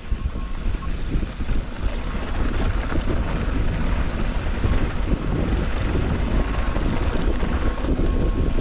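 Mountain bike tyres rolling over a dry dirt trail: a steady rumbling rush, with wind on the action camera's microphone.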